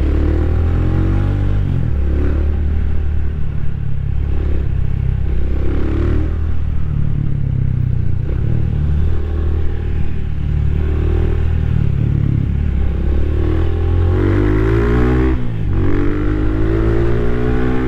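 Rusi Classic 250's LX166FMM single-cylinder 250 cc engine running as the motorcycle is ridden, the engine note rising and falling gently with the throttle. Near the end the revs drop sharply and climb again.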